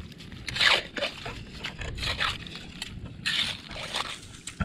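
A small hand digging tool scraping and scooping through wet gravel, mud and mussel and barnacle shells, in about four separate strokes.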